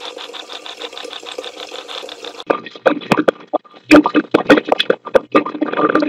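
Spirit-box phone app output, noise-filtered: a rapid, even stutter of chopped noise, then about two and a half seconds in, louder garbled voice-like fragments cut up by sharp clicks, which the owner takes for a spirit saying "I was done for, guilty of".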